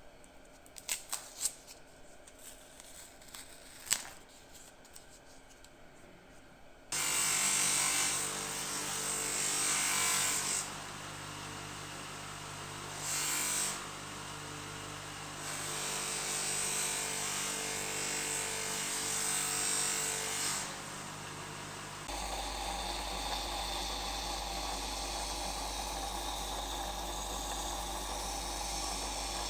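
A few light clicks, then about seven seconds in a small electric power tool starts up and runs steadily, with a high hissing contact noise that comes and goes as the work is pressed to it. About twenty-two seconds in, it changes to a different steady machine sound with a deep hum under the hiss.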